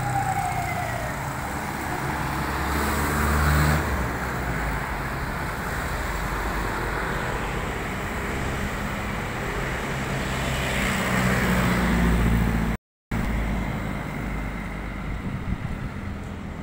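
Road traffic running steadily, with vehicles passing and the engine noise swelling about three seconds in and again around eleven to twelve seconds in. The sound cuts out for a moment near thirteen seconds.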